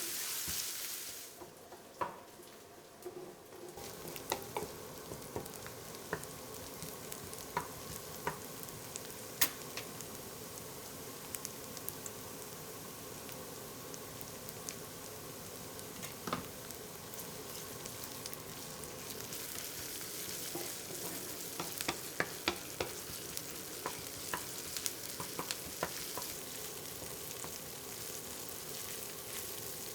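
Food sizzling in oil in a frying pan as it is stirred, with frequent light clicks and scrapes of a utensil against the pan. The sizzle drops away briefly about two seconds in, then returns.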